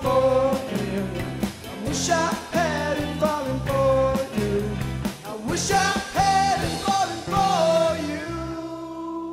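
Live indie rock band playing: a male lead vocal with backing vocals over electric and acoustic guitars, bass and drums. Near the end the drums stop and a final chord is held, starting to fade as the song ends.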